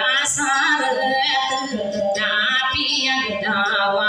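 A woman singing in phrases to a strummed acoustic guitar.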